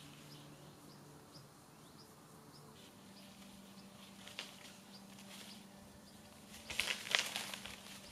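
Faint outdoor ambience: a small bird chirps repeatedly over a low steady hum. Near the end comes a short cluster of sharp clicks and rustles, louder than the rest.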